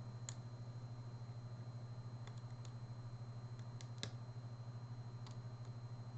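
Faint, scattered small clicks and taps of a lock pick working the pins of a GeGe AP2000 padlock, the loudest about four seconds in, over a steady low hum.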